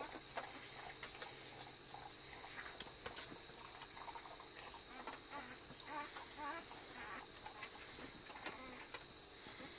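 Siberian husky mother licking her newborn puppy, with faint high squeaks from the pup around six seconds in. A single sharp click comes about three seconds in.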